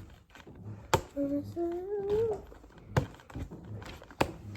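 Sharp clicks and taps of fingernails picking at the tape on a cardboard box, with a short hum about a second in.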